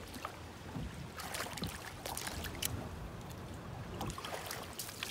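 Water splashing and dripping as a fish is held at the surface on a lip-grip and swished in the water beside a boat hull, with a few short sharp splashes over a low rumble of moving water.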